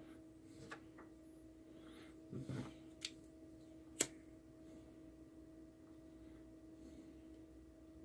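Quiet bench with a faint steady hum, a few small handling knocks and clicks, then a sharp click about four seconds in as a disposable lighter is struck to heat the shrink tubing.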